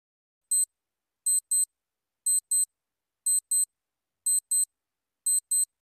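Quiz countdown timer's clock-ticking sound effect: short, identical high-pitched ticks, a single one and then five pairs, a pair each second, with dead silence between. It counts down the time left to answer the question.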